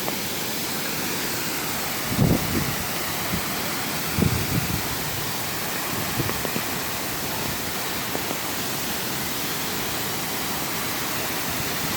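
Steady rushing of a waterfall, an even wash of falling water. A few low thumps break through about two and four seconds in.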